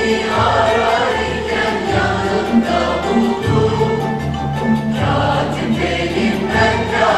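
Mixed choir singing a Turkish classical song in unison, accompanied by violin, oud and frame drums beating a steady rhythm underneath.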